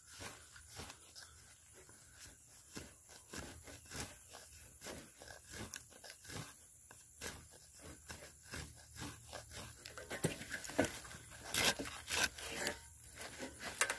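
Knife blade scraping along a pine log, raising fine shavings for tinder: a run of short, irregular scrapes, a few a second, growing louder about ten seconds in.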